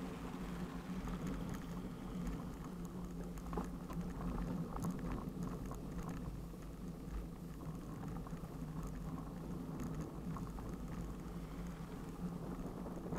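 Bicycle tyres rolling over snow on a road shoulder, with a constant patter of small clicks and rattles from the bike-mounted camera and bike. A car passes close by near the end.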